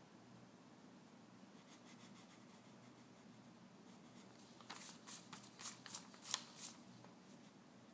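Graphite pencil scratching on paper. A few faint strokes come about two seconds in, then a quick run of about seven sharp strokes near the end, over a faint low hum.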